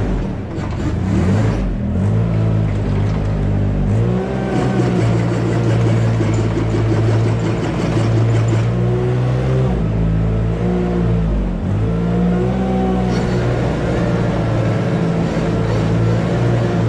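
A heavy engine running under load, its pitch rising and falling as it revs.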